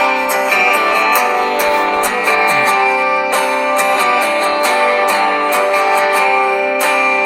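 Background music led by guitar, with strummed chords and a steady beat.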